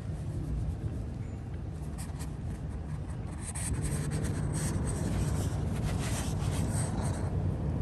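A hand stroking a tabby cat's fur close to the microphone: soft scratchy rubbing that grows louder about three and a half seconds in, over a steady low rumble.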